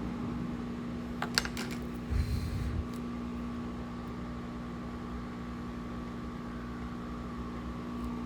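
Steady electrical hum of a fan-driven machine, with a few quick clicks a little over a second in and a short low rumble soon after.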